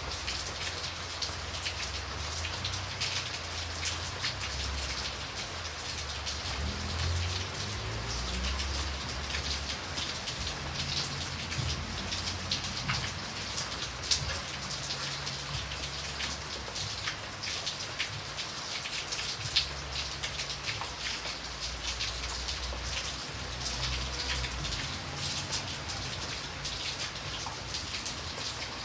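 Light rain falling steadily: a dense patter of individual drops hitting a surface over an even hiss, with a low rumble coming and going underneath.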